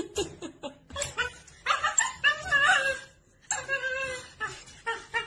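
A dog vocalizing in drawn-out, wavering calls, with clicks and rattles of a wire crate.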